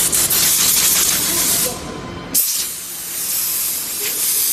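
Compressed-air blow gun hissing in loud blasts over CNC-cut board panels. One blast cuts off about a second and a half in, and a second starts sharply about a second later.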